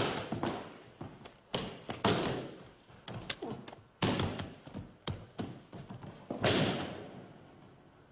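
Aikido throws and breakfalls: bodies hitting the tatami mats in about five heavy thuds, with lighter taps and slaps between them, each thud trailing off in a short echo.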